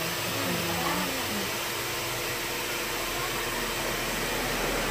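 Steady, even hiss of background noise with a faint steady hum underneath; a voice murmurs briefly in the first second.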